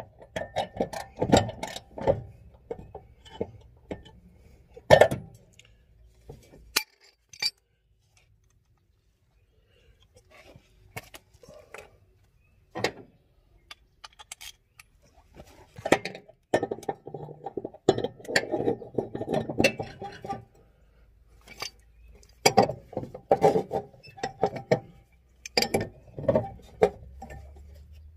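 Metal hand tools, a socket wrench and a pipe wrench, clinking and rattling at a mower blade bolt, in runs of rapid clicks with sharp metallic knocks about five seconds in and again around thirteen seconds. There is a nearly silent pause between them.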